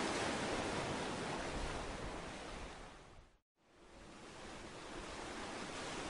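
Steady rushing noise, like wind or surf, with no engine or rotor tone in it. It fades out about three seconds in, cuts to silence for a moment, then fades back in.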